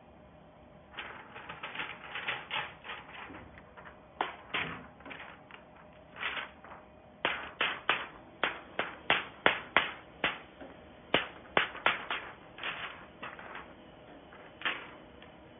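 A sheet of plastic PET transfer film crackling in short bursts as it is shaken and flicked to knock loose DTF adhesive powder off the print. The crackles come quickest and loudest in the middle, about two a second, then thin out near the end.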